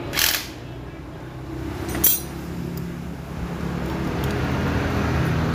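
Steel rod scraping briefly against a Scorpio motorcycle engine's cylinder as it is worked inside, then a sharp metal clink about two seconds in. A low engine hum in the background grows louder toward the end.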